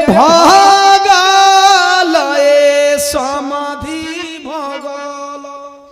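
A man singing a Bhojpuri wedding song in long, drawn-out notes with a wavering pitch: a high held note for about two seconds, then lower held notes that fade toward the end.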